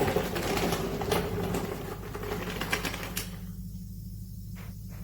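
Dual-action sander with 80-grit paper sanding paint back to feather the edges on a pickup's steel bed panel: a rough scratchy grinding over a steady motor hum. The sanding cuts off about three and a half seconds in, leaving only the hum and a couple of light ticks.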